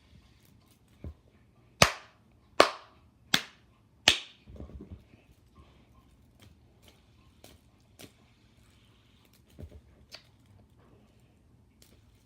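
Four loud, sharp cracks, evenly spaced about three-quarters of a second apart, followed by a few faint clicks and taps.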